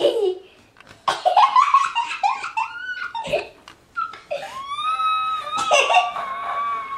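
A toddler's high-pitched voice squealing and giggling, with rising squeaks and then a long held high note in the second half.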